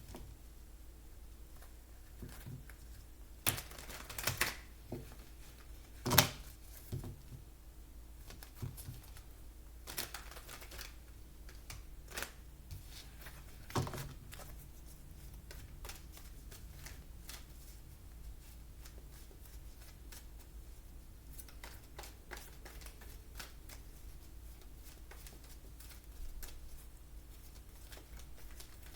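Tarot cards being shuffled and handled, with several sharp card snaps and taps in the first half and softer, rapid light clicking of cards afterwards.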